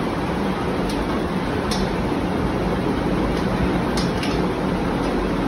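Steady, loud rushing noise with no pitch, with a few faint clicks, about four in all, as an Allen key works a bolt in the steel bed frame.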